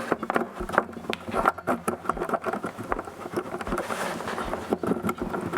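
Irregular small clicks and scrapes of a tool working the nut of a guitar's output jack as it is tightened.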